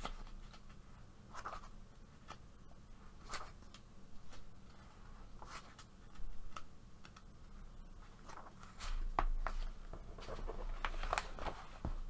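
Paper pages of a softcover coloring book being turned and handled: scattered short rustles and soft clicks of paper and fingers. From about nine seconds in, the book is lifted and moved, with louder rubbing and a low rumble.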